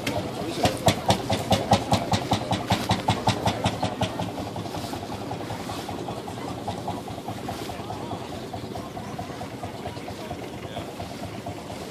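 Old tractor diesel engine at idle, chugging loudly and evenly at about four beats a second for the first four seconds, then settling to a quieter steady running sound.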